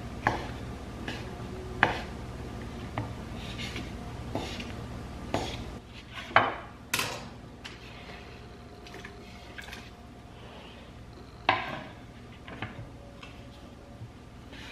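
Kitchen knife knocking on a wooden cutting board as cooked chicken is cut, in scattered sharp taps. About six to seven seconds in come louder clatters as the board is tipped and the chicken scraped off into a stainless Instant Pot.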